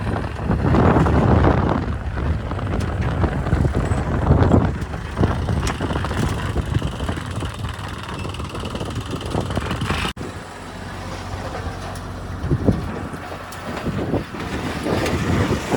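Diesel engine of a JCB 3DX backhoe loader running under load while it digs and loads mud, with wind on the microphone. The sound drops out abruptly about ten seconds in and resumes a little quieter.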